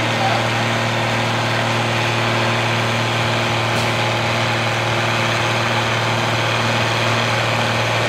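International 1055 tractor's six-cylinder diesel running at steady, unchanging revs under load as it drags a tractor-pulling brake sled slowly forward.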